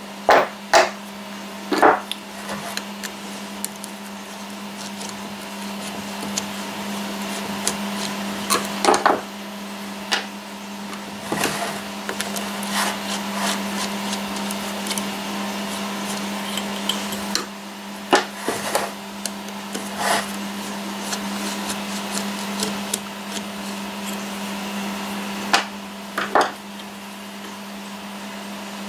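Scattered sharp metal knocks and clinks from steel three-jaw lathe chuck parts and tools being handled on a wooden bench. Underneath runs the steady hum of a 3D printer's fan.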